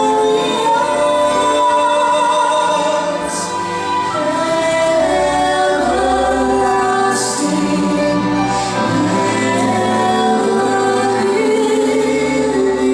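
Choir singing a Christmas song in sustained chords, accompanied by orchestra.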